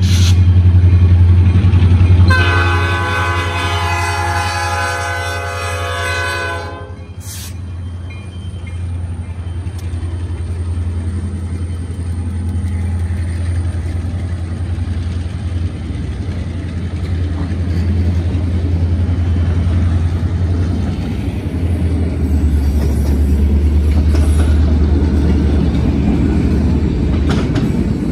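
Diesel freight train passing: a multi-chime locomotive horn sounds one long blast a couple of seconds in, lasting about four and a half seconds, over the steady low rumble of the locomotives and the rolling cars.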